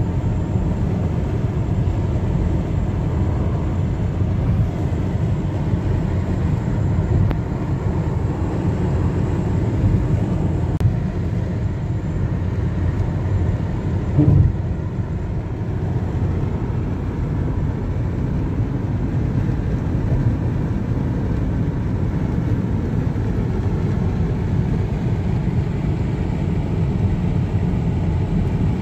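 Steady low rumble of tyre and engine noise inside a Mitsubishi's cabin as it drives at highway speed, with a brief thump about halfway through.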